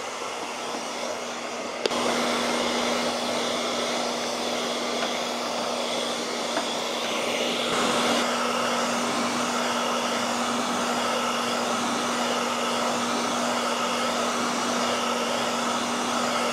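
Handheld hair dryer blowing steadily. There is a click about two seconds in, after which it runs louder with a steady hum.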